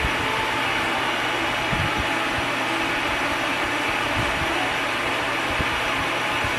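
Bladeless fan running: a steady rush of blown air over a low motor hum.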